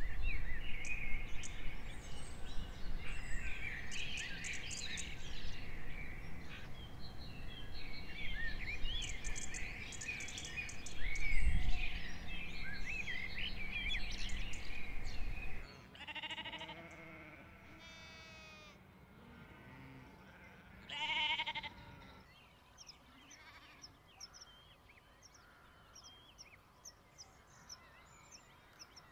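A busy chorus of birds chattering and chirping over a low rumble. About halfway through it changes to quieter countryside air where a sheep bleats twice, a few seconds apart, followed by faint, high, repeated bird chirps.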